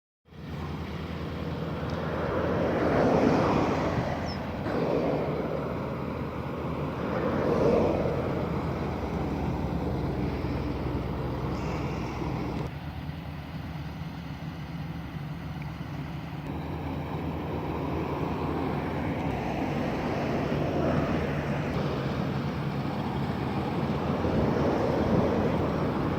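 Engine of a rice harvesting machine running steadily, its sound swelling louder several times in the first eight seconds and again near the end.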